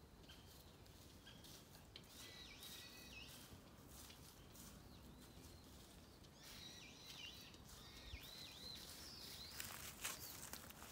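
Faint bird chirping: quick runs of short, high, repeated notes, once about two seconds in and again from about six seconds in.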